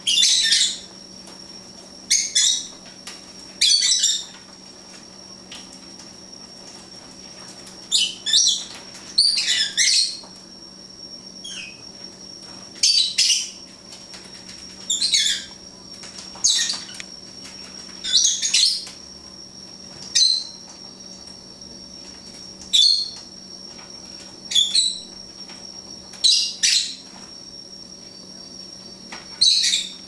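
Rosy-faced lovebirds bathing under a running kitchen tap: about fifteen short, sharp, high-pitched bursts of chirps and wing-flutters, one every second or two, over the steady sound of the running water.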